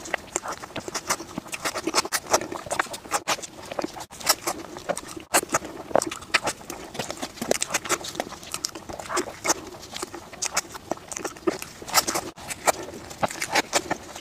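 Close-miked chewing of soft cream-filled bread, with wet mouth noises and many small irregular clicks.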